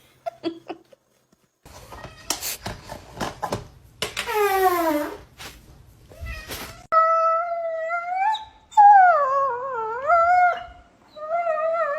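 Dog howling: a falling whine about four seconds in, then long, wavering howls that rise and dip in pitch through the second half, preceded by a few short scuffling noises.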